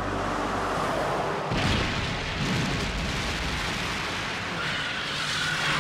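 An explosion effect: a sudden blast about a second and a half in, followed by a long rumbling roar as the ground erupts and a huge cloud of earth and smoke billows up.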